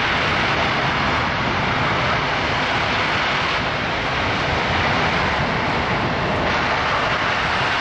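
Boeing C-17 Globemaster III's four Pratt & Whitney F117 turbofan engines running with a loud, steady roar.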